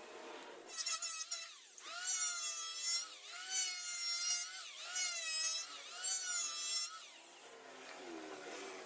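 Electric hand planer running and cutting wood, its motor whine sagging in pitch and recovering about once a second as the blades bite in on short passes. It starts about a second in and stops a couple of seconds before the end.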